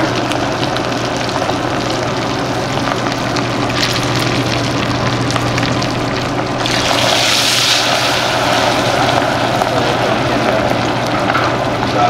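Fish deep-frying in hot oil in a large stainless steel stockpot, a steady vigorous sizzle and bubbling. A louder, hissier surge comes about seven seconds in.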